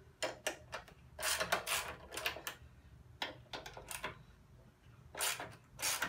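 Hand socket ratchet clicking in several short bursts with pauses between them as bolts are loosened and backed out.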